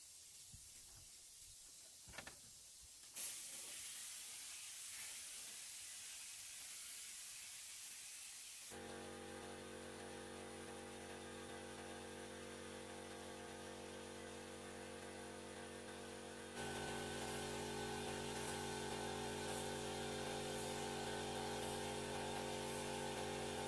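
Gravity-feed paint spray gun hissing steadily as it sprays finish onto wooden wall planks. About nine seconds in, the steady hum of an air compressor motor joins it, and both get louder about sixteen seconds in.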